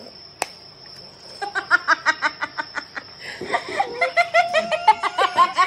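A single sharp crack near the start as a raw egg is broken on a toddler's head, then women laughing hard in quick 'ha-ha-ha' bursts from about a second and a half in.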